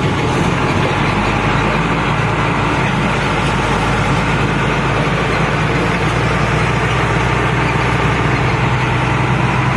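Mitsubishi Fighter truck's diesel engine heard from inside the cab, pulling along in second gear at low speed and running steadily.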